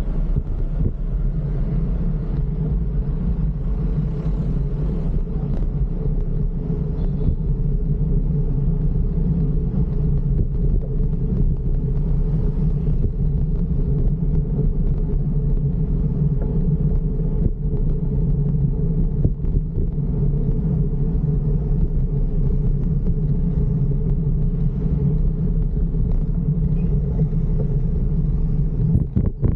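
Steady low rumble of road and wind noise on the camera's microphone while riding a bicycle through city traffic.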